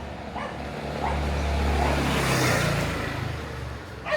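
A road vehicle passes close by, its engine and tyre noise swelling to a peak about halfway through and fading away. A short knock sounds at the very end.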